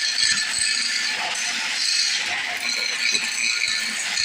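Turning tool cutting into wood spinning on a lathe: a continuous harsh scraping with small irregular knocks underneath.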